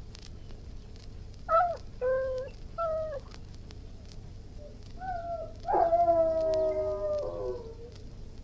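Irish wolfhound giving three short whining calls, then a brief call and one long howl that sags in pitch as it ends.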